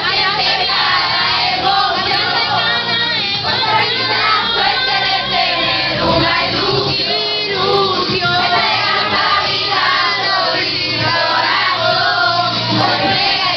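A group of teenagers singing their graduating class song together, many voices at once, over music playing from a stereo.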